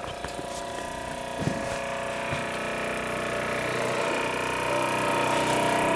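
Mamod ME3 marine model steam engine running steadily on low gas, a smooth, quiet whirr that grows gradually louder.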